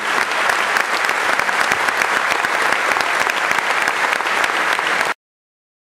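Audience applauding: dense, steady clapping that stops abruptly about five seconds in.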